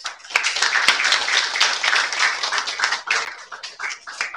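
A roomful of people applauding: dense clapping that starts suddenly, holds strong for about three seconds, then thins out.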